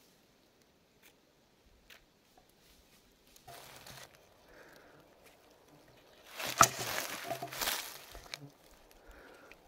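Rustling and crunching of ground and vegetation being disturbed. A few faint ticks come first, then a short rustle about three and a half seconds in, and the loudest crackling rustles from about six to eight and a half seconds.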